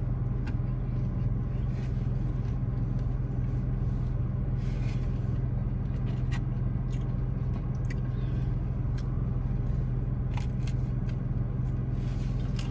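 Steady low hum of a car heard from inside the cabin, its engine or climate fan running while it sits still. Small scattered clicks and brief rustles of fried fish being handled and bitten run over it.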